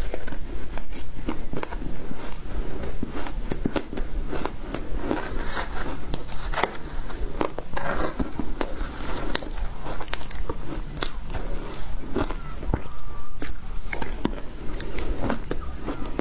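Shaved ice dusted with matcha powder being bitten and crunched in the mouth, a dense run of irregular sharp crackles, with a metal spoon now and then scraping and scooping in the glass bowl.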